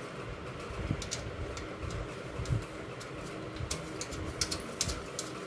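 Metal motherboard standoffs being fitted by hand into the floor of a steel PC case: scattered small metallic clicks and taps with a few dull knocks, over a steady faint hum.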